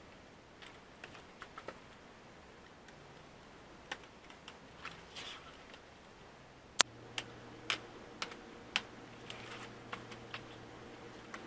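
Scattered sharp plastic clicks and taps, with some rustling, from pry tools working around the screen bezel of a Dell Chromebook 3100 2-in-1 as it is opened up. One loud click comes about seven seconds in, after which a faint low hum runs underneath.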